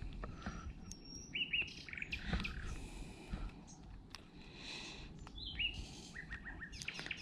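Several small birds singing in the trees: overlapping chirps and short slurred phrases, with a thin high whistle about a second in and a quick run of repeated notes near the end.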